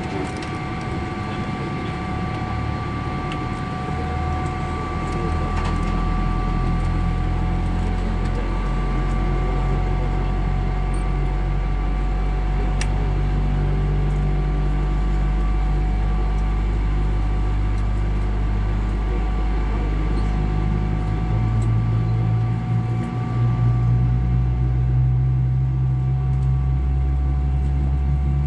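Cabin noise inside a Boeing 777-300 on the ground during engine start: a steady ventilation whine with a low engine rumble that builds about five seconds in and shifts in pitch around twenty-two seconds in.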